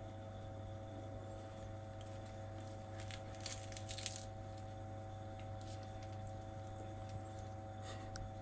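A few crunches of crisp pastry as a samosa is bitten into, about three to four seconds in, over a steady electrical hum.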